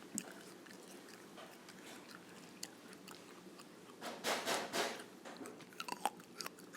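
Cheeto being crunched and chewed: a low, quiet stretch, then a burst of crisp crunching about four seconds in lasting about a second, followed by a few small clicks.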